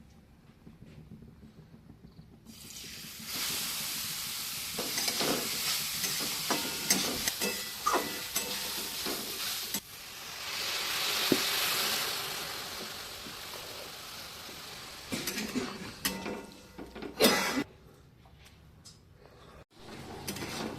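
Grated carrots for carrot halwa sizzling in a hot pan while being stirred, with the spatula scraping and knocking against the pan. The sizzle starts a couple of seconds in, swells in the middle and dies down near the end.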